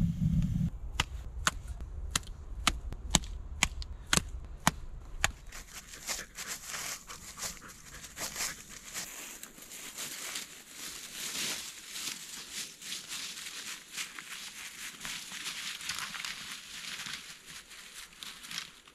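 Stick fire crackling, with about ten sharp pops over the first five seconds. Then, from about six seconds in, footsteps crunching and rustling through dry fallen leaves.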